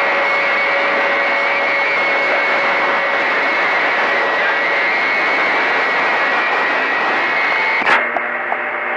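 CB radio receiver on channel 28 putting out steady static hiss with faint steady whistles of carriers beating together, typical of noisy long-distance skip reception. About eight seconds in, a click cuts the hiss off and a lower, even buzzing hum takes its place as a station's carrier comes in.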